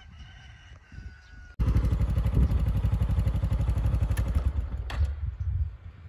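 An engine running loudly with a rapid, even pulse, cutting in abruptly about a second and a half in and stopping shortly before the end.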